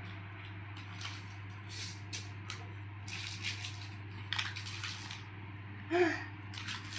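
Irregular rustling and crackling over a steady low hum, with one brief voice-like sound about six seconds in.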